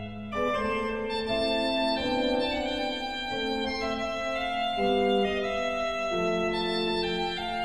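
Slow organ music of held chords, the notes changing about once a second, after a brief dip right at the start.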